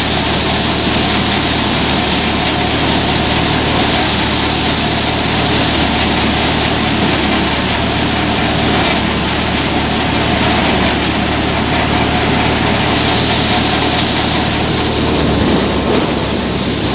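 Tractor-driven paddy thresher running steadily under load: a loud, even mechanical din of drum and fans with a constant low hum.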